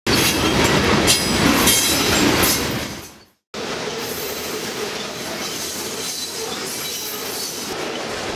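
Freight train of covered hopper cars rolling past on the rails, the wheels clacking and grinding. A loud stretch fades out about three seconds in, and after a brief gap a steadier, quieter run of the passing cars follows.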